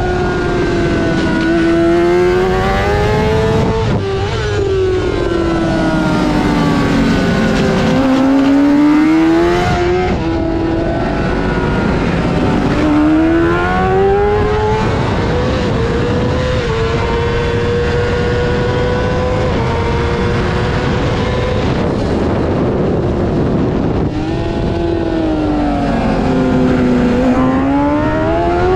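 Honda CBR600 inline-four racing engine at high revs. Its pitch drops away and then climbs back up several times, as it slows for corners and accelerates out of them.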